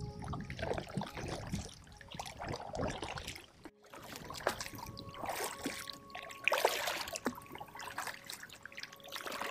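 Kayak paddling: a double-bladed paddle dipping and pulling through pond water in repeated strokes, with splashing and water dripping off the blades.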